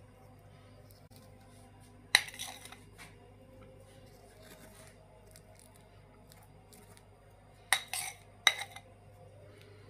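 Metal spatula clinking against a dish: one sharp clink about two seconds in and three more close together near the end, over a faint steady hum.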